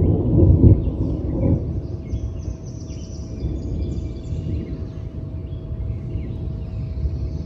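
Rolling thunder, loudest in the first second and a half and then dying down to a low background rumble, with birds chirping throughout.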